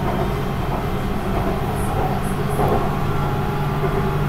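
BTS Skytrain car in motion, heard from inside the carriage: a steady rolling rumble with a low, even hum.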